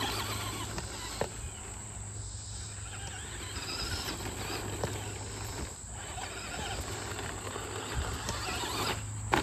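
Brushed electric motor and drivetrain of a Traxxas Slash 2WD radio-control short-course truck running as it drives laps on a dirt track, with tyre noise on the dirt and a sharp tick near the end.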